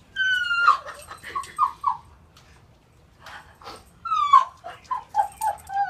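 Dog whining excitedly in high, falling whines: a long whine at the start, then a run of short ones, and another long whine about four seconds in, followed by more short whines.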